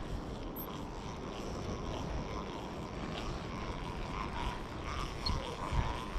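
Wind rumbling steadily on the microphone while a spinning reel is wound in, its handle turning to retrieve a hooked fish.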